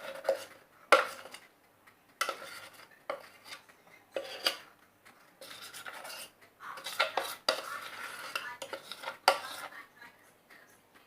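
A utensil scraping cake batter off the sides of a mixing bowl into a cake tin, with irregular scrapes and sharp clinks and knocks against the bowl; the loudest knocks come about a second in and near the nine-second mark.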